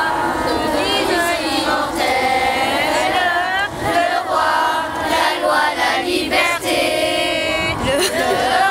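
A choir singing, several voices together.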